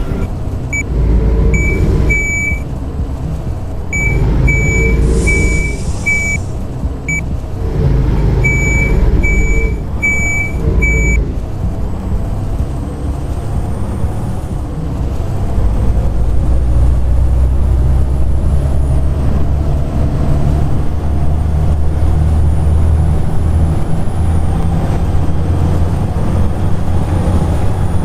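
Volvo B7TL double-decker bus: three groups of about four short high beeps and a brief air hiss in the first eleven seconds, with the engine running. The bus then pulls away, its engine working hard with a high 'hoover' whine rising in steps as it gathers speed.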